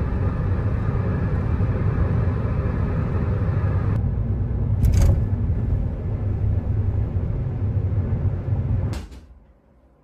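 Road and engine noise inside a car's cabin at highway speed: a steady low rumble, with a brief knock about halfway. It cuts off suddenly about nine seconds in.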